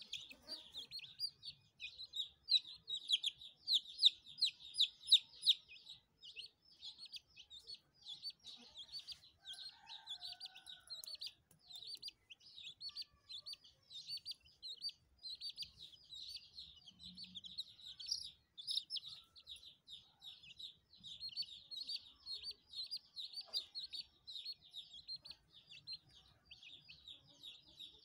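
Chicks peeping without a break, a rapid run of short high chirps several a second, loudest a few seconds in.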